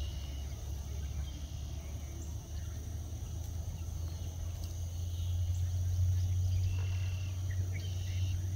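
Outdoor ambience: a steady low rumble that grows louder about five seconds in, under a steady high insect drone, with a few faint short bird chirps.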